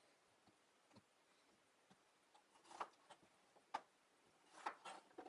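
Chef's knife cutting through cucumber and knocking down onto a cutting board: a handful of short, sharp knocks, most of them in the second half.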